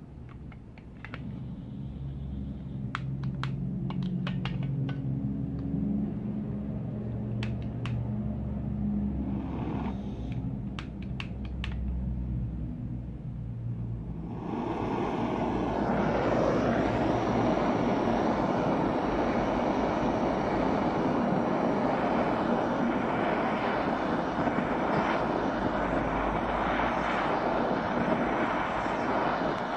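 Gas torch flame running loud and steady, a strong hissing rush that comes on about halfway through as the flame heats copper wire in a clay crucible to melt it. Before it there is a low rumble with scattered clicks.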